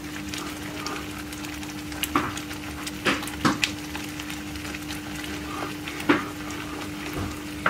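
Wooden spatula stirring thick tomato sauce in a non-stick frying pan, with a few sharper scrapes and knocks against the pan over a steady low hum.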